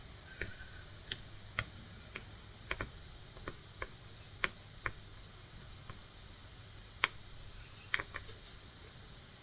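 Faint, irregular small clicks and ticks, about one or two a second, from cross stitching by hand: the needle poking through taut fabric and the thread being pulled through.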